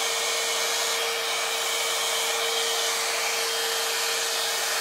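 Head Kandy Commitment Issues hot-air blow-dry brush running steadily, a rush of blown air with a steady motor whine, while a section of hair is dried and curled on the brush.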